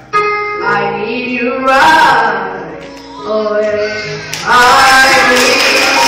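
A young boy singing a slow gospel song solo through a microphone, holding long notes that glide between pitches; about two thirds of the way through he swells into a loud, sustained note.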